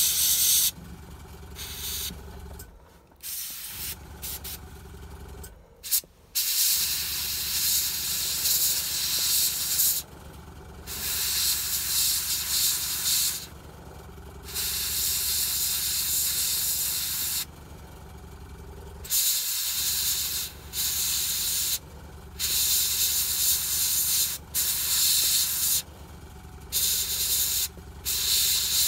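Airbrush spraying paint in repeated bursts of hiss, each from under a second to a few seconds long, as the trigger is pressed and released. A steady low hum runs underneath.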